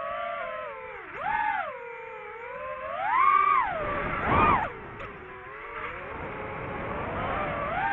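DJI FPV drone's motors and propellers whining, the pitch sweeping up and down as the throttle changes, with sharp surges about a second and a half in, again near three and a half seconds, and loudest at about four and a half seconds.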